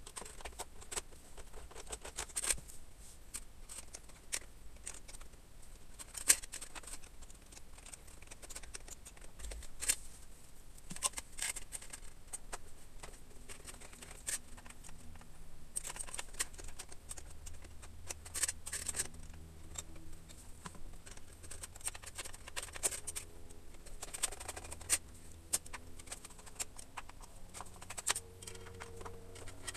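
Irregular small clicks and scratches of a screwdriver and gloved hands working on the metal CPU heatsinks inside a Power Mac G5 case.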